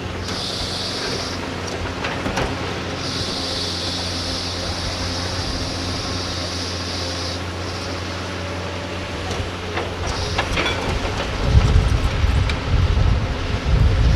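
Heavy diesel machinery running steadily: an excavator at work. A high hiss comes twice, briefly about half a second in and again for about four seconds from around three seconds. From about eleven seconds a louder, uneven low rumble takes over.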